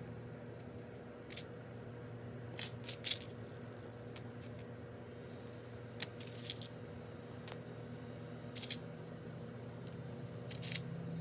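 Small seashells clicking and clinking against each other and the pot as they are set one by one around a succulent's base, in irregular taps with a louder cluster about three seconds in. A steady low hum runs underneath.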